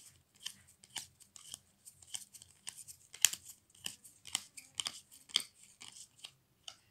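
Stiff, glossy football trading cards being flicked through in the hand, each card sliding off the stack with a crisp snap, about two or three a second and irregular; one snap a little past three seconds is louder than the rest.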